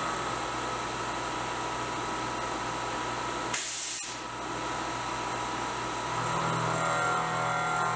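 CNC milling machine spindle running with a steady whine as a small end mill cuts across the face of a 52100 tool steel die, with the hiss of a trickle of air blast clearing chips. A short louder burst of hiss comes just past halfway.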